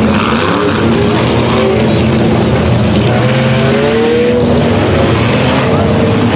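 A pack of Pure Stock and four-cylinder dirt-track cars running laps together to pack the wet track, many engines going at once with overlapping notes that rise and fall as the cars pass.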